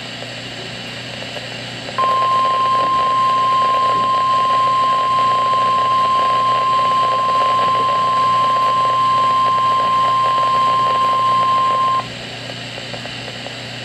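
NOAA Weather Radio's 1050 Hz warning alarm tone: one steady high beep that starts about two seconds in, holds for about ten seconds and cuts off sharply, signalling a tornado watch. Radio static hiss from weak reception runs under and around it.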